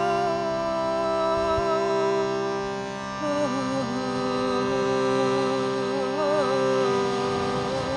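Shruti box drone with a woman singing over it in long held, wavering notes. Her melody steps down to a lower pitch about three seconds in while the reed drone holds steady underneath.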